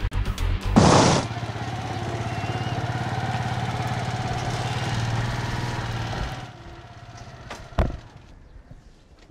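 A short, loud crash-like burst about a second in, then an auto-rickshaw engine idling steadily with a fast, even putter. The engine sound drops away about six and a half seconds in, followed by a single knock.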